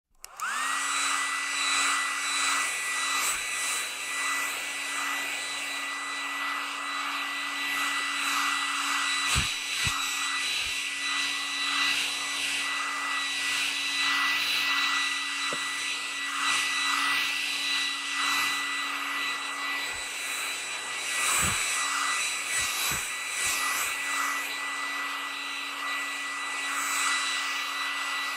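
Hair dryer switched on, its motor spinning up within half a second to a steady high whine over rushing air, then running continuously.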